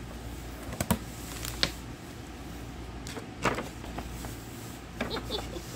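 Tissue paper and packaging rustling and crinkling as a cardboard gift box is unpacked by hand, with a few short, sharp handling sounds.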